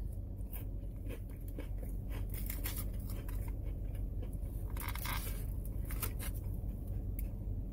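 Close-up eating sounds: chewing a cracker, with small clicks and crackles of a plastic takeout container being handled and a brief rustle about five seconds in, over a steady low hum of the car cabin.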